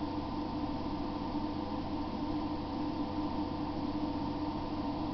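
Steady background hum and hiss, with a few constant low tones and no change throughout.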